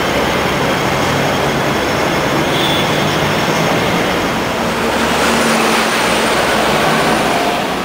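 Double-decker electric tram moving off from a stop and passing close by, with a motor hum and faint high whine coming in about five seconds in, over a loud steady din of street traffic.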